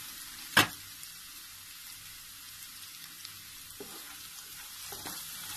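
Chopped onion, ginger and garlic sizzling in coconut oil in a nonstick wok, a steady hiss. A plastic spatula knocks sharply against the pan about half a second in, and there are a few lighter taps later as the onions are stirred.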